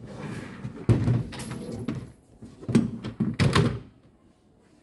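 Hollow plastic storage bin being handled and shifted on a store shelf: rustling and scraping, with a sharp knock about a second in and a cluster of knocks around three seconds.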